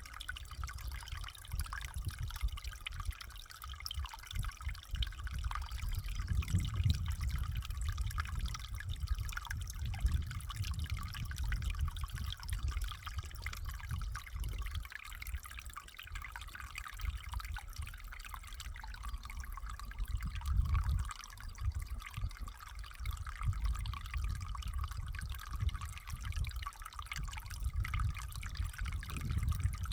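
Water trickling and dripping continuously, a busy patter of small splashes over an uneven low rumble.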